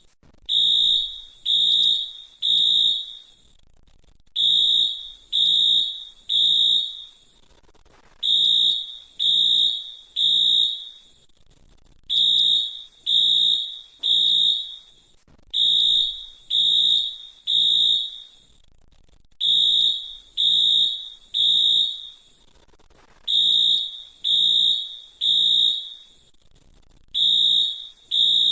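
Fire alarm sounding the three-beep temporal evacuation pattern: three high-pitched beeps, then a pause, repeating about every four seconds.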